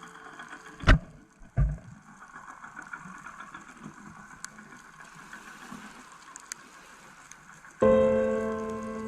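Calm ambient keyboard music. Two short, low thumps come about a second in, then the music runs quietly. Near the end a loud piano-like chord strikes and slowly fades.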